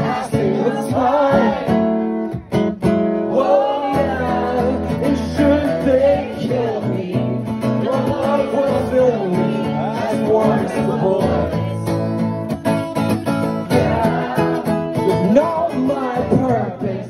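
A man singing while strumming an acoustic guitar, played live as a solo performance.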